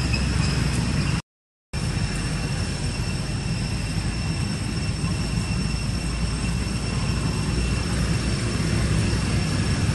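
Steady outdoor background noise: a low rumble and hiss with thin, steady high-pitched tones above it. The sound cuts out completely for about half a second just over a second in.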